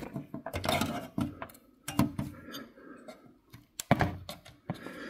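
Scattered light clicks and knocks of an Ethernet cable's plug being pushed and fumbled against the metal PCIe bracket and case slot pieces, unable to seat in the network card's socket because the case pieces are too thick. Two sharper clicks, about four seconds in and near the end.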